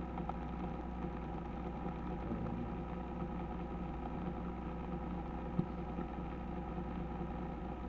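Steady low hum with several constant tones underneath, and a single faint click about five and a half seconds in.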